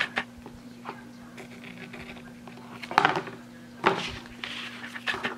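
Small scissors snipping off washi tape, a couple of quick sharp clicks at the start. Then cardstock is rustled as it is handled, loudest about three and four seconds in.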